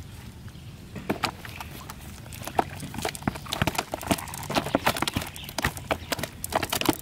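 Live fish flapping and slapping against wet grass, mud and a plastic basin as they are taken out of a cast net: irregular sharp slaps and taps that grow busier from about a second in.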